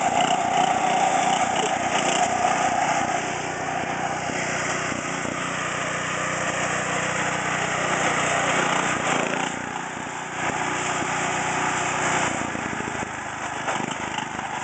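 Small lawn tractor engine running steadily under load as the tractor drives across pavement and climbs a steep grass bank, easing off briefly about ten seconds in.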